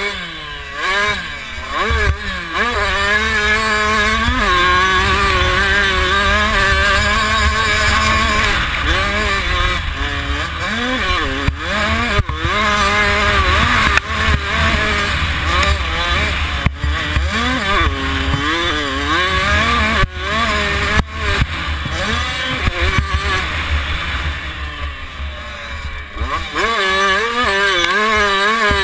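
A 65cc two-stroke motocross bike engine heard from on board, revving hard and dropping back again and again as it is ridden around a dirt track. There is a heavy low rumble under it and occasional sharp knocks.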